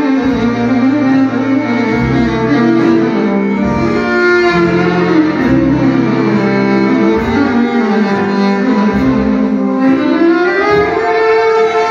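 Electric violin bowed in a lively folk-style melody with frequent note changes and slides, including a rising glide near the end. Low sustained notes from an accompanying instrument sit underneath.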